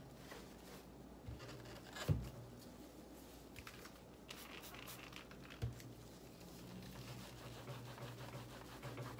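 Cloth wiping and rustling over a small guitar practice amplifier's cabinet and grille, with two dull knocks, one about two seconds in and one near six seconds.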